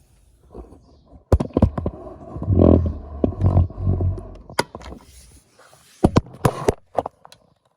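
Small modified toy washing machine running, with a faint steady motor whine and irregular plastic knocks and rattles, heavy thuds in the middle, then a few sharp knocks as it stops.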